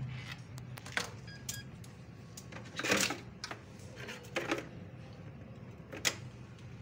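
A handful of light clicks and knocks, spread over several seconds, as a broken computer mouse and its cable are handled and dropped into a wastebasket; the loudest is a short clatter about three seconds in.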